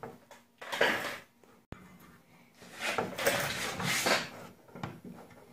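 Scraping and rubbing against a car's sheet-metal body panel during paintless dent repair, in two longer stretches with a single sharp click between them.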